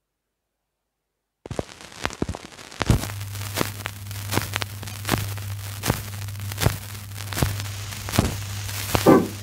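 Surface noise of a 1953 acetate record disc in the lead-in groove: crackle and a sharp click that comes back about every three-quarters of a second, once per turn of the disc, with a steady low hum joining about three seconds in. The sound cuts in abruptly about a second and a half in, and the music begins right at the end.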